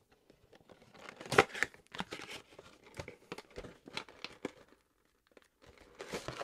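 Cardboard packaging of a NECA action-figure box being opened by hand: irregular scraping, crinkling and clicking of card and plastic as the flap is worked open, with one sharp snap about a second and a half in and a short pause near the end.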